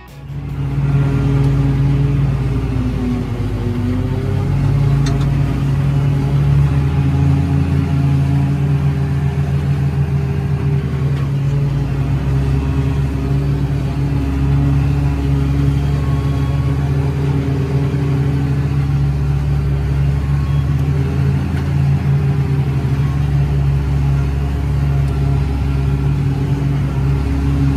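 Tractor engine running steadily under load, driving a trailed maize forage harvester as it chops standing maize. It is heard from inside the cab as a loud, even drone that comes up about half a second in.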